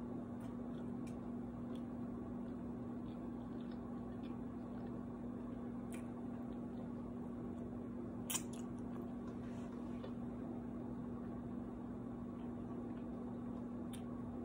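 Quiet room with a steady low electrical hum, and a few faint clicks and mouth sounds of a person eating with her fingers, the clearest about eight seconds in.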